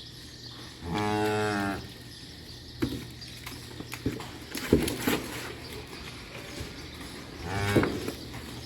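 A cow moos once, a low steady call lasting under a second, about a second in. A few knocks follow, then a shorter call near the end.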